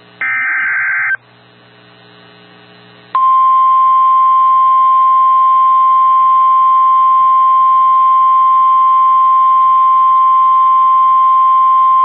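Emergency alert broadcast on NOAA Weather Radio: a one-second burst of digital SAME header data tones, then after about two seconds a single steady loud 1050 Hz warning alarm tone held for about nine seconds. The tone signals that a warning message follows, here a tornado warning.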